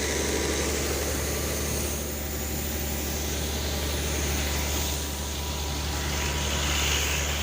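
Large air compressor's engine running steadily with a constant low hum, just after being started for deep-well flushing.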